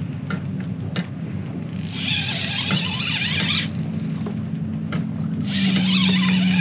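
Spinning reel cranked in two spells of winding while a hooked fish fights on the line, over the steady low hum of a boat motor whose pitch drops a little near the end.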